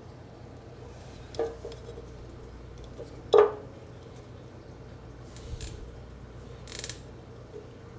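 Small metal parts and tools being handled during small-engine carburetor and linkage work: a light click, then one sharp metallic clank with a short ring, followed by two brief scraping rustles.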